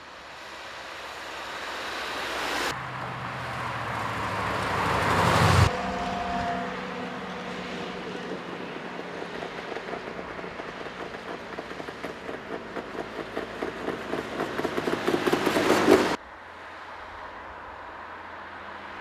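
Classic cars driving past one after another, each engine growing louder as it approaches and peaks, with sudden cuts between passes. Through the middle, an old car's engine runs with an even pulsing beat that quickens as it comes closer.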